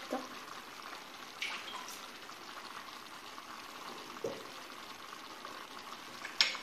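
Steady sizzling of the meat cooking in a clay tagine on a gas flame, with a few light knocks and clicks as the vegetables and cherry tomatoes are set in the pot by hand, the sharpest near the end.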